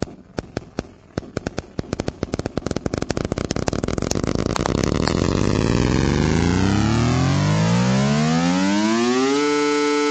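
A 3-against-2 rhythm of tapped clicks, the right hand playing three pulses for every two of the left, played back from an audio editor and speeding up until the clicks blur into two rising tones. About nine seconds in the tones stop rising and hold steady as a perfect fifth, showing rhythm turning into pitch.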